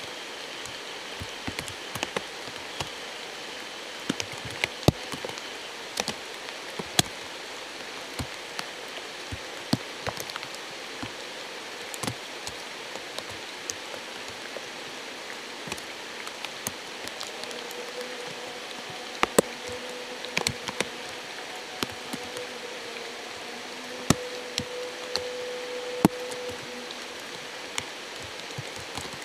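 Night ambience by a small stream or spring: a steady hiss of running water, with scattered sharp drips and ticks at irregular moments. A faint held tone sounds through the second half.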